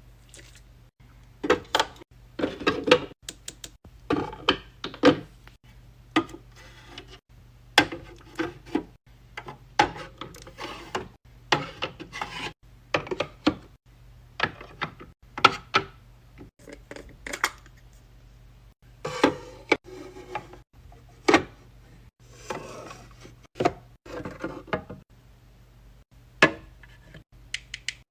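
Skincare containers and packets being set down and arranged in a mini fridge: an irregular run of sharp clicks, taps and light clinks, a few a second, with short stretches of rubbing and rustling in between.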